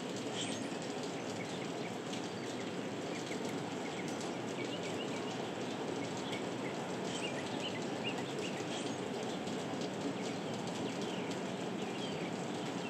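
Heavy rain falling as a steady, even hiss, with many short high-pitched ticks and notes scattered through it.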